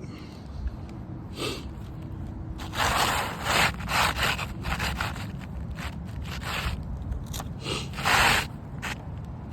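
Asphalt roofing shingle being handled on the roof, scraping and rustling in irregular bursts, loudest near the end.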